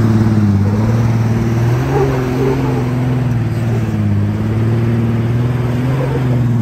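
Jeep Cherokee XJ's engine working under load as it crawls up a steep rock face, its revs rising and falling a little.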